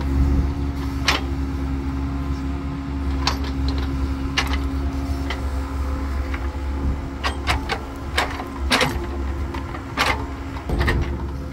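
Mini excavator's diesel engine running steadily under hydraulic load while its bucket digs wet soil for a drainage trench. Sharp knocks and clanks from the bucket and boom linkage come irregularly, about ten times.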